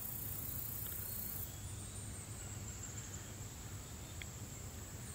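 Faint, steady insect drone, such as crickets, over a low background rumble; the high-pitched part thins out about a second and a half in.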